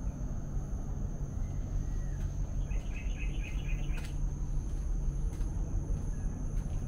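Outdoor ambience: a steady low rumble under a continuous thin high whine, with a short run of rapid chirps about three seconds in.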